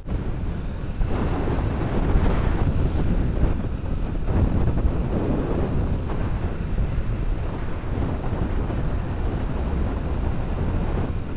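Wind buffeting the microphone on a moving motorcycle, a steady rumbling rush with the bike's running and road noise underneath.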